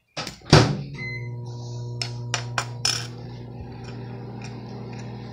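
Heavy knocks on the countertop right by the microphone, then a steady low electrical hum that starts about a second in and carries on, with a few sharp clicks over it between two and three seconds in.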